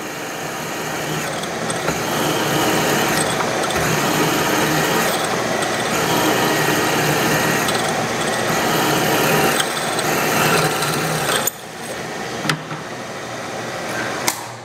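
Allen variable-speed drill press drilling a hole in a metal bar: a steady motor hum under loud cutting noise whose hiss swells every couple of seconds. It drops off sharply about 11 seconds in as the drill comes out of the work, and a couple of sharp clicks follow.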